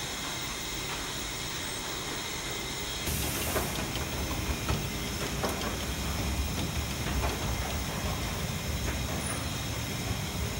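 Sugarcane crushing mill running during cane juice extraction: a steady machinery hiss, then about three seconds in a louder low rumble with irregular clanks and knocks.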